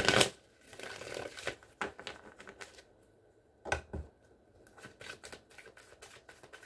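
A tarot deck being shuffled and handled: a rush of shuffling right at the start, a fainter rustle, then sharp clicks and many small scattered taps of cards.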